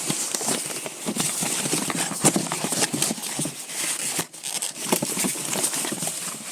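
Packaging being handled and opened: rustling with irregular knocks and clicks.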